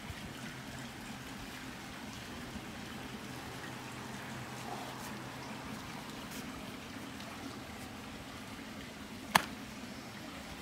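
Faint steady trickle of swimming-pool water over a low, even hum. A single sharp click comes near the end.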